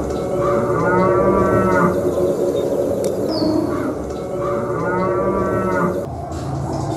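A diorama's recorded soundscape: a drawn-out animal call that rises then falls in pitch sounds twice, about four seconds apart. Each call follows a short, high, falling chirp, over a steady low drone.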